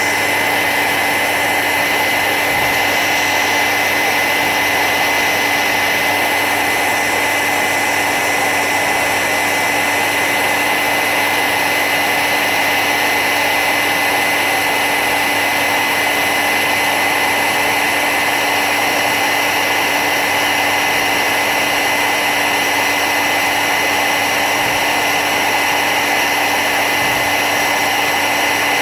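Hairdryer running steadily on full power with a high whine, blowing hot air to shrink heat-shrink tubing.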